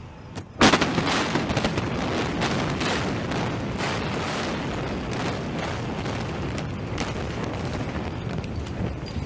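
Building implosion: a sudden loud blast about half a second in, then a rapid run of sharp cracks over a continuous rumble, as the demolition charges fire in sequence and the structure comes down.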